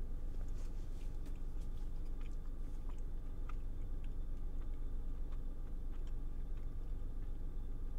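A person chewing a mouthful of pumpkin bread, with small irregular mouth clicks. A steady low rumble runs underneath.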